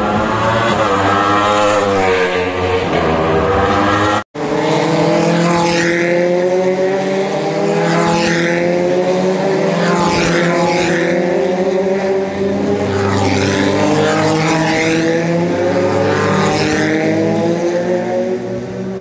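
Open-wheel race car engines running at high revs on the circuit. The engine pitch wavers up and down, cuts out abruptly for an instant about four seconds in, then climbs slowly for the rest.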